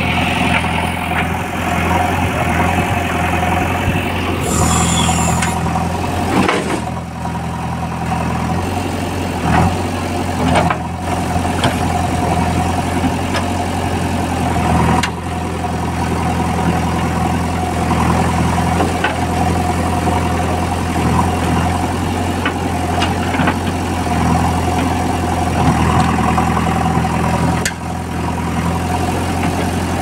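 JCB backhoe loader's diesel engine running steadily while the backhoe arm digs through wet mud, with a steady mid-pitched whine over the engine and a few scattered knocks.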